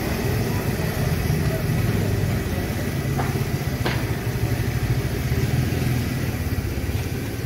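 An engine running steadily at idle, a low steady hum, with two short clicks a little after three seconds and near four seconds in.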